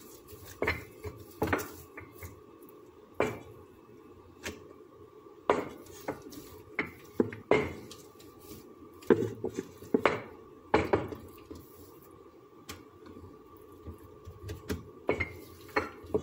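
Rolling pin clacking and knocking against a hard countertop while dough is rolled out flat: irregular sharp knocks, often about a second apart, with short pauses between runs of strokes.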